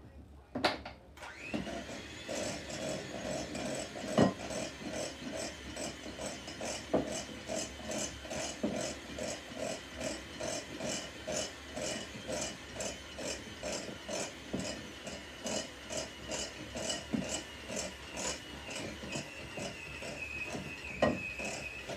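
Kenwood electric hand mixer switching on about a second and a half in and beating a stiff cookie dough in a ceramic bowl: a steady motor whine with a rhythmic scrape of the beaters about twice a second and a few sharp knocks against the bowl. Near the end the whine sags a little as the motor struggles with the stiff dough.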